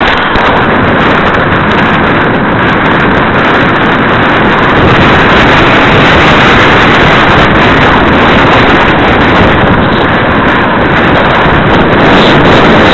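Wind rushing over the microphone of a handlebar-mounted camera on a bicycle riding fast downhill: a loud, steady rushing noise.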